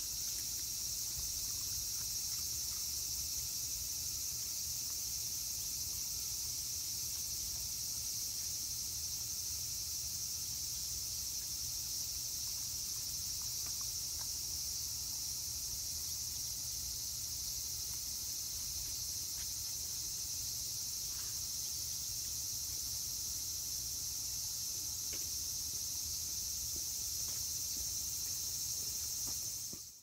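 Japanese cicadas (semi) in a steady, high-pitched chorus that drones on without a break, with a low rumble underneath.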